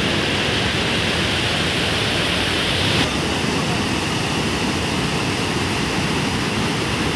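Heavy rain pouring down in strong wind, a steady, dense rushing noise; the sound shifts slightly about three seconds in.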